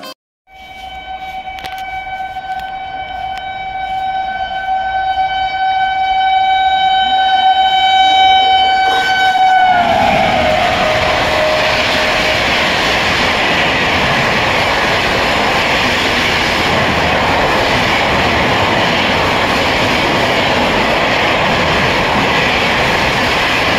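Locomotive horn of a Rajdhani Express sounding one long, steady note as the train approaches at high speed, growing louder. About ten seconds in the horn drops in pitch as the engine passes, and then the coaches rush past with a steady noise of wheels on rail.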